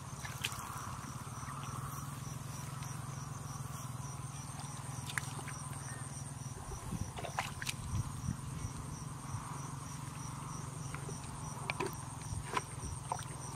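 Insects trilling steadily with a high pulsing chirr over a low steady hum, with a few wet squelches and splashes from bare feet and hands working in mud and shallow water about halfway through and near the end.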